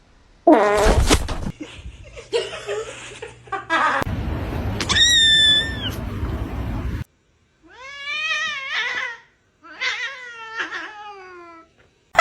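A house cat meowing several times, in long drawn-out meows, the later ones falling in pitch, with abrupt cuts between them.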